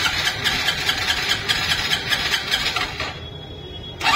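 Hero Super Splendor's single-cylinder engine being cranked over with a fast, even rhythm for about three seconds without firing. It pauses for about a second, then is cranked again near the end. The bike, its clutch plate worn out, will not start.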